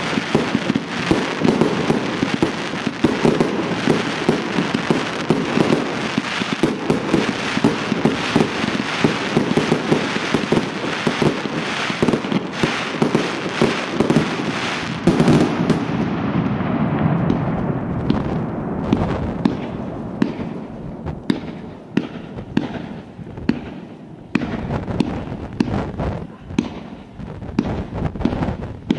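Professional fireworks display: a dense, rapid stream of bangs and crackling. After about sixteen seconds it thins out into separate sharp bangs, a few a second, and grows quieter.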